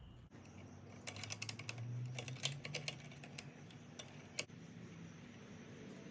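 Metal tools clicking and clinking as a 17 mm box-end wrench and a 5 mm Allen key work the bolt off a motorcycle clutch cover. There is a quick run of clicks about a second in, and a couple more near four seconds.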